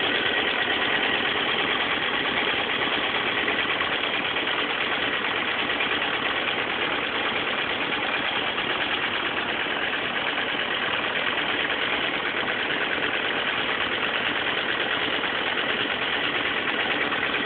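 Motorcycle engine running steadily at idle, making a noise its owner thinks is not right.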